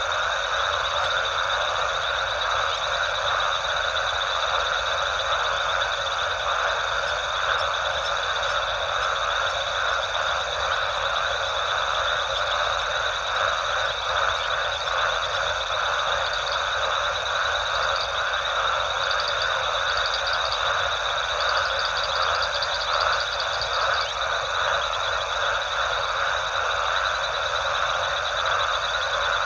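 Dense night chorus of frogs calling without a break, over a steady high trill. Short, higher pulsed trills join in from about halfway through.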